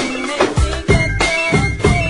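Instrumental music with heavy drum hits about every half second and a wavering melody line.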